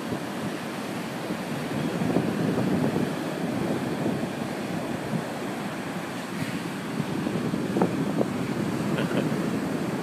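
Pacific surf breaking and washing up a sandy beach: a steady rushing noise that swells a little about two seconds in and again near the end, with wind buffeting the microphone.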